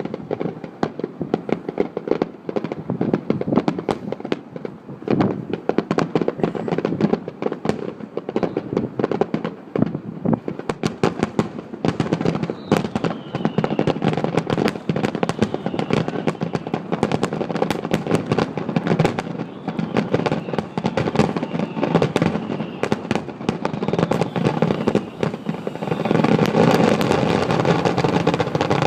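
Fireworks display going off in rapid, overlapping bangs. The bangs come thicker after about ten seconds and merge into a loud continuous barrage near the end.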